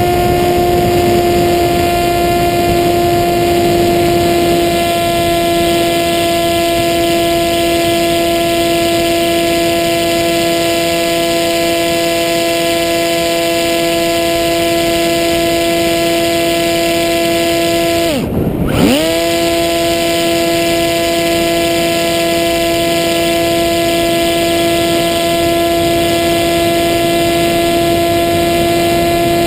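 The Maxi Swift's Hacker A30L brushless motor and propeller running at steady high throttle, a constant whine with air rushing past the onboard camera. About two-thirds of the way in the throttle is chopped for under a second: the pitch dives down and swings straight back up.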